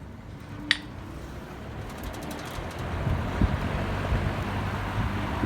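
Old Superlectric model 20655 box fan switched onto high: a sharp click under a second in, then the motor's hum and the rush of air build up over a couple of seconds as the blades come up to speed. It runs a little noisy, with uneven low thumping.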